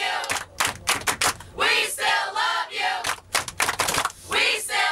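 A busload of fans chanting together in unison, with hands clapping along between the chanted phrases.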